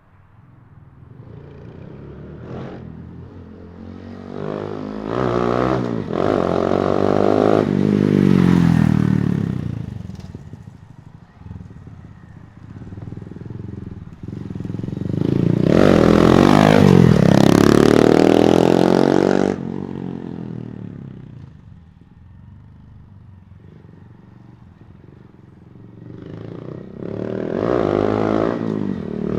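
Honda Monkey 125's single-cylinder four-stroke engine as the motorcycle rides past three times, pitch climbing under acceleration and dropping as it goes by. The second pass, about halfway through, is the loudest.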